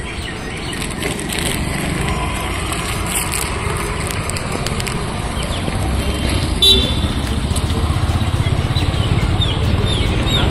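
Street traffic noise, with a low engine rumble building through the second half as a vehicle approaches, and a brief high-pitched sound about two-thirds of the way through.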